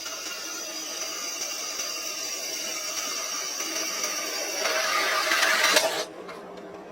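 Electric power tool motor running with a steady whine, louder and rougher for about a second near the end, then cutting off suddenly.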